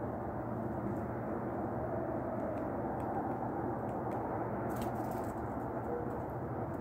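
Steady low background rumble and hum, with a few faint ticks of a woodpecker pecking at crushed nuts on a concrete ledge and a brief cluster of clicks about five seconds in.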